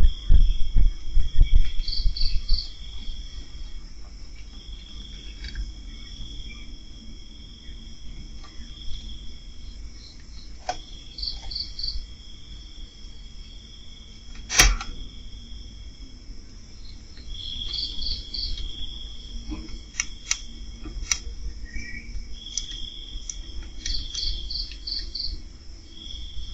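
Crickets chirping at night: a high steady trill that comes and goes every couple of seconds, with short groups of three or four quick chirps just above it. Low rumbling thumps in the first few seconds, and a single sharp click about halfway.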